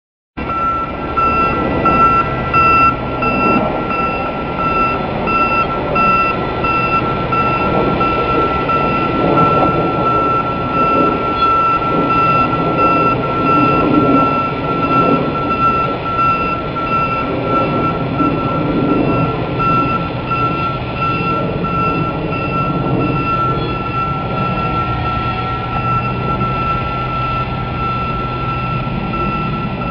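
Mobile gantry crane's warning alarm beeping steadily at one high pitch over its engine running, while the crane carries a precast concrete module.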